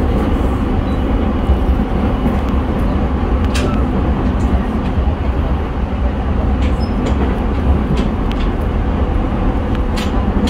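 Inside a motor car of a JR East E217 series electric train running along: a steady rumble of wheels on rail with a motor hum holding one pitch, and a few faint clicks.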